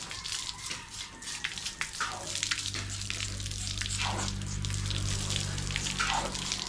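Water running and splashing with irregular scraping, as whole pig carcasses are washed and cleaned of leftover hair. A low steady hum joins about three seconds in.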